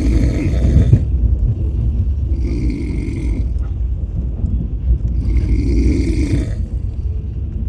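A sleeping person snoring, one rasping snore about every two and a half to three seconds, each lasting about a second, over a steady low rumble.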